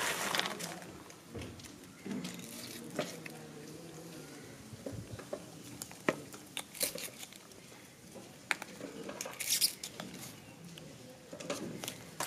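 Scattered small clicks, taps and rustles of handwork: a pointed metal tool scraping among loose fuse sticks and pushing into a twine-wrapped atom bomb cracker to make the hole for its fuse.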